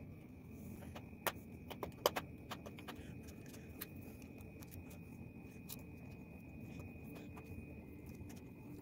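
Small Phillips screwdriver clicking and scraping on the tiny battery screws and plastic of a ThinkPad laptop, with a few sharper clicks about a second and two seconds in, over a low steady hum and a faint high whine.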